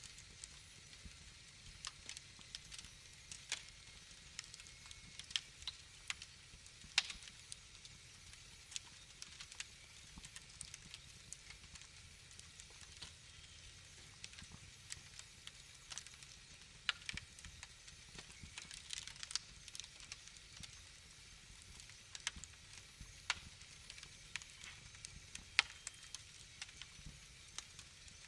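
Wood fire crackling in a fireplace: irregular sharp pops and snaps over a faint low rumble.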